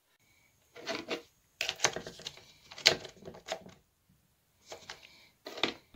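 Hands handling a Husqvarna 346 XPG chainsaw on a workbench: short knocks, clicks and rubs against its plastic housing, in several brief clusters.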